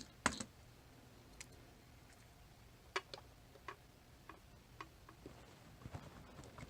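Faint, irregular small clicks and taps of metal parts and tools being handled while a Chicago Ace tubular lock is taken apart, about a dozen over a few seconds at uneven spacing.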